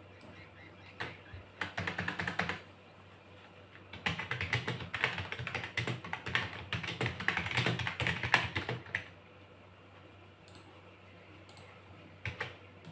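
Typing on a computer keyboard: a short burst of key clicks, then a longer run of fast typing, then a few taps near the end.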